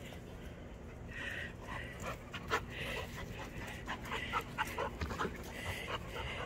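A puppy panting in quick, even breaths, about two a second, starting about a second in, with scattered light clicks.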